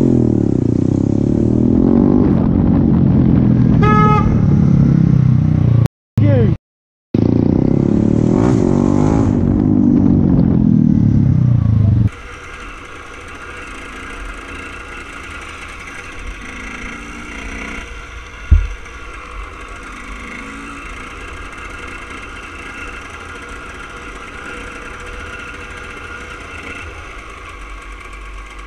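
Motorcycle engine running and revving in traffic, with a short horn beep about four seconds in. After a cut about twelve seconds in, a much quieter dirt bike engine runs steadily at low speed, with one sharp knock partway through.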